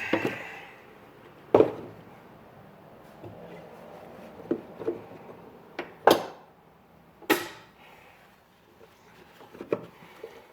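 A series of sharp knocks and clacks from hard objects being handled and set down, three of them loud, over a faint low background hum.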